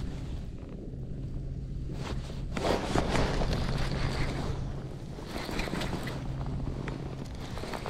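Wind buffeting the microphone over open water, loudest in a gust about three seconds in, over a steady low hum that breaks off briefly twice.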